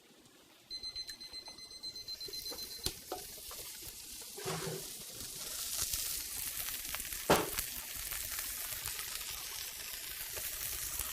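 A meat thermometer alarm beeps rapidly for about two seconds. Then a steak starts sizzling in a very hot cast iron pan, with a few sharp clanks.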